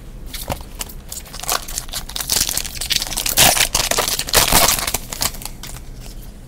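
Foil wrapper of a trading card pack crinkling and tearing as it is opened by hand: a run of dense crackles, loudest about halfway through.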